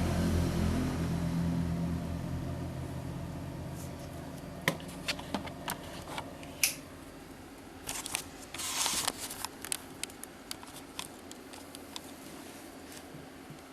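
A low hum fades out over the first few seconds. Scattered sharp clicks follow, with a short scraping rustle about eight to nine seconds in, like small parts being handled.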